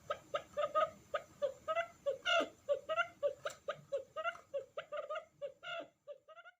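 Quail calling: a rapid, even run of short chirping notes, about four a second, that stops near the end.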